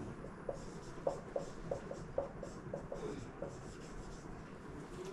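Marker writing on a whiteboard: a quick series of short squeaks as the letters are stroked out, dying away after about three and a half seconds.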